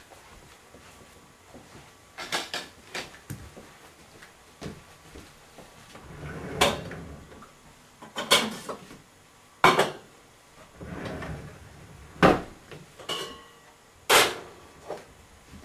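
A kitchen drawer sliding open and shut and metal pots clanking as one is taken out, amid a string of sharp knocks and bangs.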